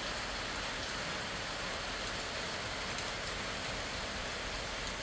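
Steady, easy rain falling: an even hiss with a few faint drop ticks.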